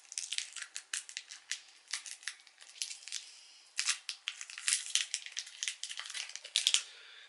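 Plastic sweet wrapper crinkling and crackling as a small wrapped candy is picked open by hand, in an irregular run of sharp crackles.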